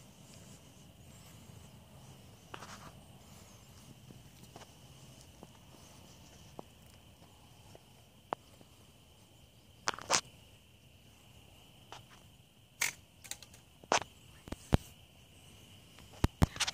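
Steady high-pitched insect drone, with scattered sharp clicks and crunches: a loud double click about ten seconds in and several more near the end.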